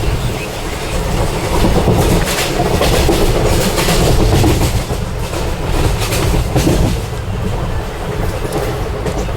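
Steady low rumble of a moving vehicle, with scattered sharp clacks over it.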